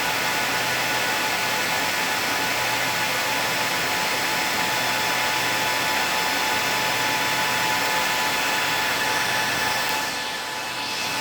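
Cooling fans of a broadcast transmitter running with a steady whir and a few steady whining tones; the sound dips a little about ten seconds in.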